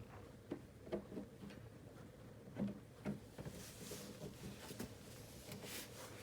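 Faint scraping and a few light clicks of a small screw being driven by hand with a screwdriver into a TV stand's engineered-wood panel. The clicks fall in the first half, and a soft scraping follows.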